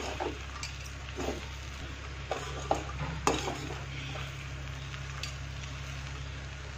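Perforated steel spatula stirring puffed-rice poha in an aluminium kadhai, with a few short scrapes and taps against the pan in the first five seconds. Under it the food sizzles faintly, cooking uncovered so leftover water dries off.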